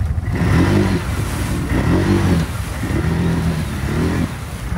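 ATV engine revving in repeated bursts, its pitch rising and falling four times.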